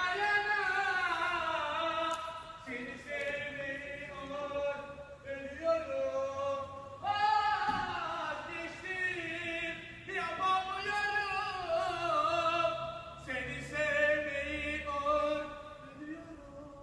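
A Ramadan drummer singing a chanted verse, unaccompanied, in a strong male voice. The phrases are long and drawn out, with wavering, ornamented notes and short breaks between them.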